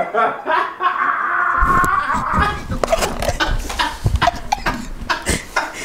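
Laughter and a held cry from a person, then from about a second and a half in, repeated thumps, knocks and rubbing as the camera is picked up and moved about.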